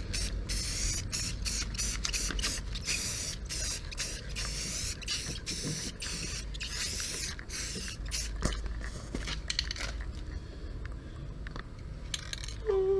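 Aerosol can of black spray paint hissing in many short bursts with a few longer sprays, stopping near the end.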